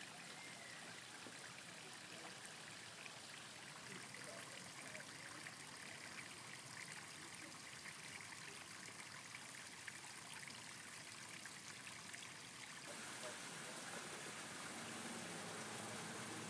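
Faint, steady rush of running water. The sound changes abruptly about thirteen seconds in and becomes hissier.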